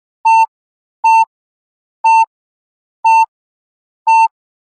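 Yo-Yo endurance test app's electronic beeps: five short identical beeps about a second apart, timing the brief rest between shuttles.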